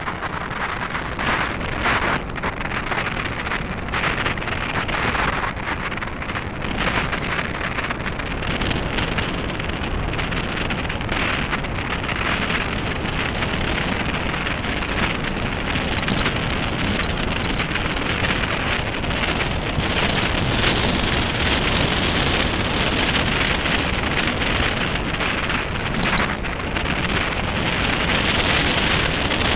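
Mountain bike tyres crunching and rattling over a loose gravel dirt track, with steady wind noise buffeting the microphone and many small clicks and crackles of grit and stones throughout.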